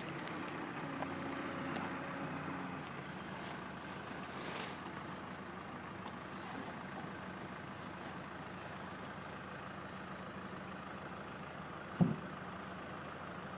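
Heavy construction equipment's diesel engine idling steadily, an even low hum, with a single sharp knock about twelve seconds in.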